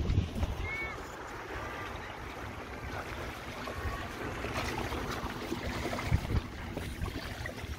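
Wind buffeting the microphone over small waves washing against a sandstone rock ledge, the wind rumble strongest at the start, with a single low thump about six seconds in.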